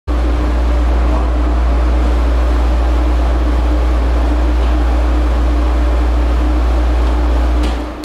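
Wall-mounted through-the-wall air conditioner running with a loud, steady low hum and a rush of air, switched off near the end so that the sound dies away.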